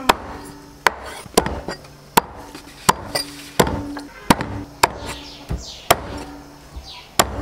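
Chinese cleaver chopping a raw chicken into bone-in pieces on a thick round wooden chopping block: about ten sharp chops, a little faster than one a second.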